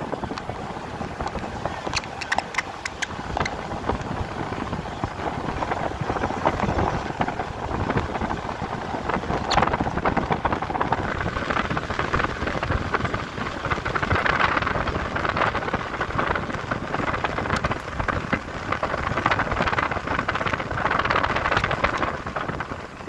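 Steady rushing noise of wind and road noise from a moving vehicle, swelling and easing, with a few sharp clicks about two to three and a half seconds in.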